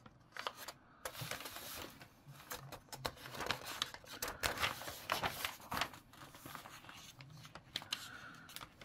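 Paper rustling and crackling as the hands handle a model kit's instruction booklet and turn its pages: irregular, starting about a second in.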